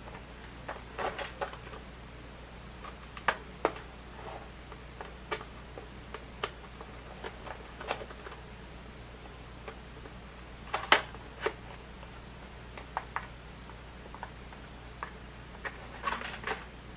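Irregular clicks, taps and crinkles of hands working at the taped plastic and cardboard packaging of a Nerf Jolt blaster pack, with a sharper snap about eleven seconds in and a cluster of clicks near the end.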